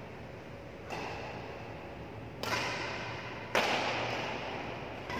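Badminton racquets striking a shuttlecock three times in a doubles rally, each sharp crack echoing through a large hall; the third hit is the loudest.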